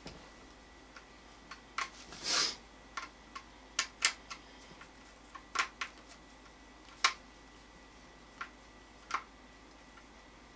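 Scattered sharp clicks and light taps from small metal rifle parts and hand tools being handled during assembly, about ten in all, with a brief scrape about two seconds in.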